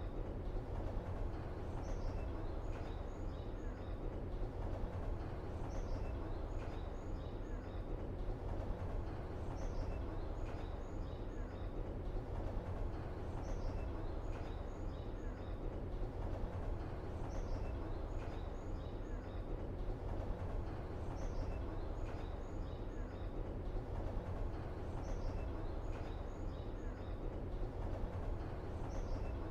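Outdoor ambience: a steady low rumble with small birds chirping over it, the same short phrase of high chirps coming back about every three and a half seconds.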